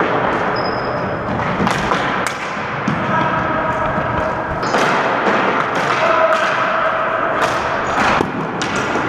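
Ball hockey play on a gymnasium's hardwood floor: sticks and ball knocking on the floor and around the goal. Sharp knocks come every second or so over a continuous din of play.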